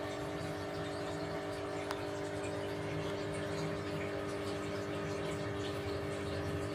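Aquarium pump humming steadily, with water moving in the tank.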